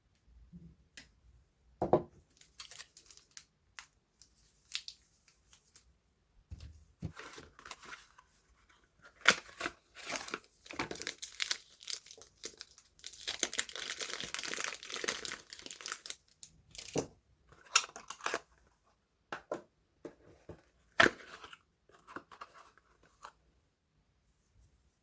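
Soap packaging being unwrapped by hand: wrappers crinkling and tearing in irregular bursts, with a dense stretch of rustling a little past the middle and a few sharp taps of handled items.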